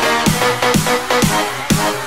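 Electronic dance music with a steady kick drum, about two beats a second, under held synth tones.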